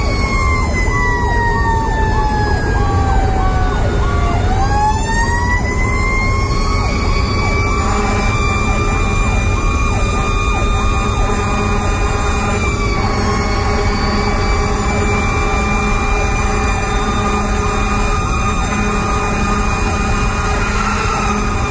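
Fire apparatus siren heard from inside the cab: it winds down over about four seconds, spins back up, then holds a steady high wail with a faster pulsing tone under it. A heavy diesel engine and road noise run underneath.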